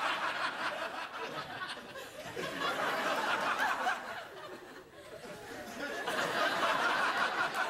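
Studio audience laughing. The laughter dies down a little just before the middle, then swells up again near the end.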